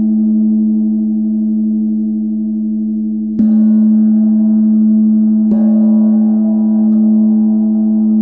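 Tibetan gong ringing with a steady low hum and many overtones. It is struck softly with a felt mallet twice, about three and a half seconds in and again two seconds later, and each stroke briefly brightens and renews the ring.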